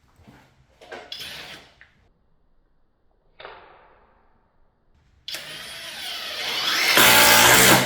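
Cordless impact driver run in reverse against a screw: the motor spins up about five seconds in and breaks into loud rapid hammering for the last second before stopping suddenly, with the screw not going in because the driver was set to reverse. A couple of short handling noises come earlier.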